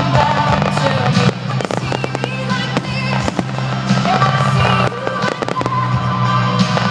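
A fireworks display finale: many rapid bangs and crackles of exploding shells, over loud music played for the show.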